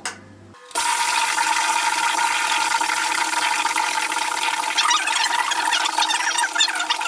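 Pressurised CO2 venting from stainless steel homebrew kegs during a purge. It starts suddenly as a loud, steady hiss under a second in, and from about five seconds in a crackling spatter of bubbling joins it.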